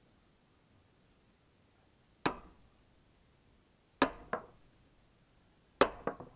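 Hammer blows on steel set into a log being split: six sharp metallic clinks with a short ring. There is a single blow, then a pair, then a quick run of three near the end.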